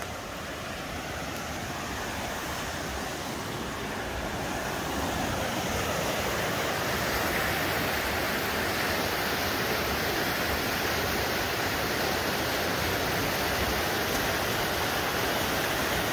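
River water rushing over rocks: a steady, even rush that grows a little louder over the first few seconds and then holds.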